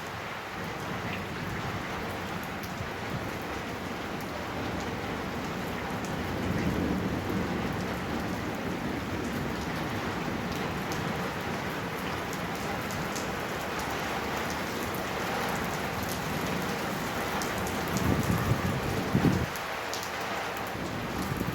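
Heavy rain with hail pouring down steadily, with scattered sharp ticks of hits. The rain swells a little several seconds in, and a louder low rumble comes near the end.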